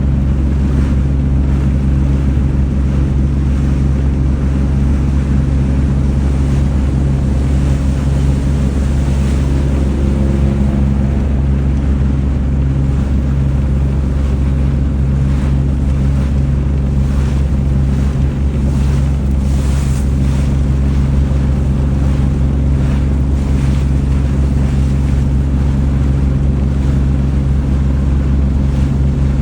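Boat's engine running steadily with a low drone, under a rush of wind and water.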